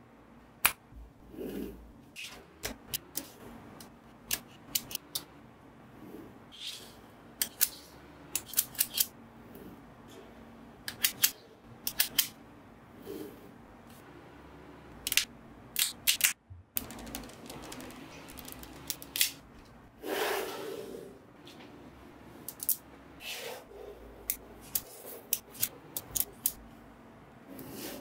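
Small magnetic balls snapping into place against each other: irregular sharp clicks, often in quick runs of two to four, with a brief scraping rub about twenty seconds in.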